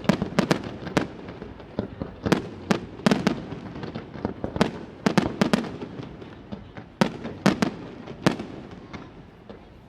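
Aerial fireworks display: a rapid, irregular run of sharp shell-burst bangs, each with a short echoing tail. The bangs come in clusters every second or two and die away over the last couple of seconds.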